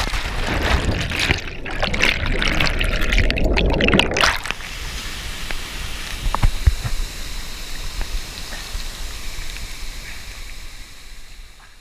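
Churning, splashing water of a heavy waterfall stream close to the microphone, loudest over the first four seconds, then settling into a steadier rush that fades away near the end.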